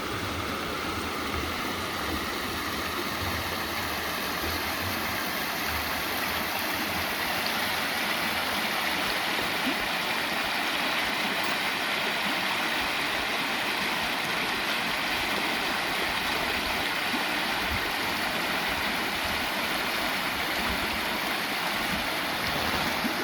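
Steady, unbroken rush of water from a mountain waterfall and creek, growing a little louder over the first several seconds.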